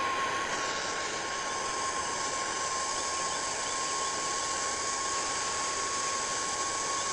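Handheld torch flame burning with a steady hiss and a thin, steady whistle, heating a cane dart shaft to straighten it.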